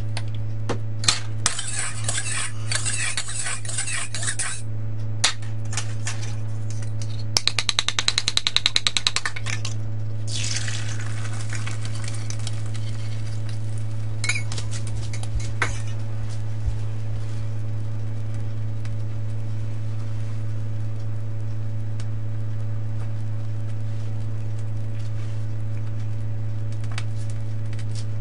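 Eggs briskly beaten in a bowl, a fast run of clinks about ten a second, then poured into the hot oiled wok with a short loud sizzle that fades as the egg sets. A steady low hum runs underneath, with a few utensil clinks.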